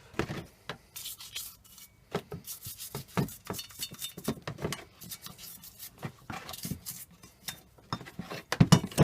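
A brush scrubbing hardened old grease off Lewmar 34 winch parts in irregular short strokes, several a second, harder near the end.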